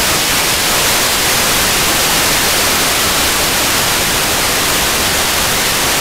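Steady, loud hiss of an FM radio receiver tuned to the ISS 2 m downlink near 145.800 MHz with no signal coming in: open-squelch static in a gap between transmissions.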